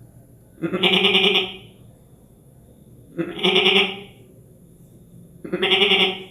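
Three long, quavering goat bleats, each about a second long and spaced roughly two and a half seconds apart: the call of a female (nanny) goat.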